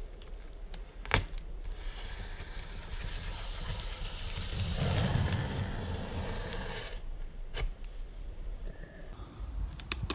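Multitool knife blade slitting packing tape along a cardboard box seam: a scratchy rasp lasting several seconds that swells in the middle, with a sharp click just before it and a few metallic clicks near the end.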